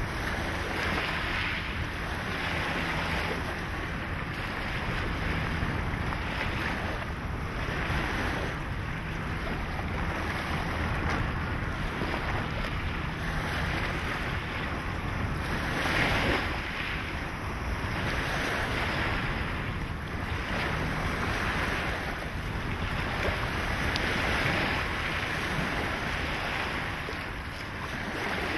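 Small waves lapping onto a sand and shingle shore, each wash swelling and fading every couple of seconds, with wind rumbling on the microphone.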